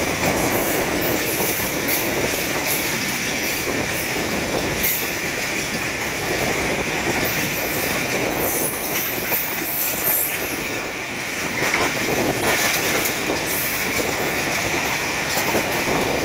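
Continuous rumble and clatter of trains on the move, heard from an open coach window as a long freight train of covered wagons passes on the next track, with clicks from the rail joints. A steady high wheel squeal runs through it.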